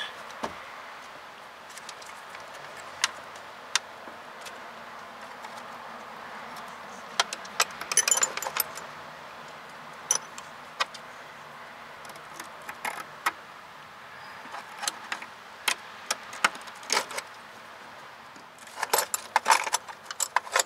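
Scattered metal-on-metal clicks and clinks of a 10 mm wrench working a brake line flare nut tight, coming in small irregular clusters over a faint steady hiss.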